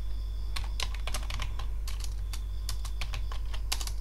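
Typing on a computer keyboard: irregular single keystrokes, with a quick run of several keys near the end.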